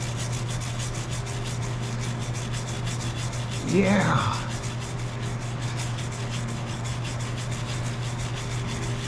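Brush scrubbing a lathe's graduated dial wet with an acetone and automatic transmission fluid mix: a steady, rapid rasping along the graduation marks, over a constant low hum.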